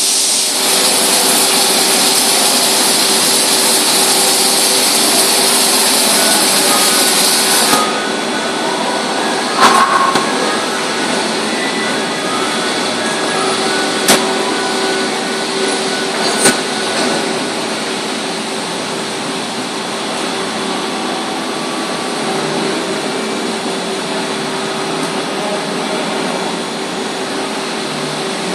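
Large CNC machine swivelling its angled milling head, with a steady mechanical hum throughout. A loud hiss stops abruptly about eight seconds in, and a few sharp clicks sound after it.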